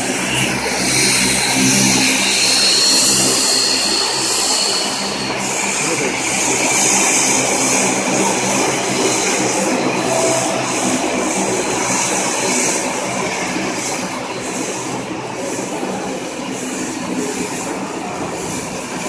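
Engines of a twin-turboprop airliner taxiing close by: a steady drone and hiss, with a high whine that rises slightly over the first few seconds.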